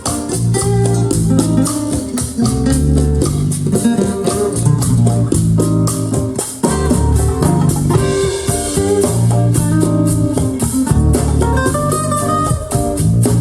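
Jazz-fusion music with guitar, bass and percussion, played through KEF Q11 loudspeakers driven by a Pioneer SA-708 amplifier.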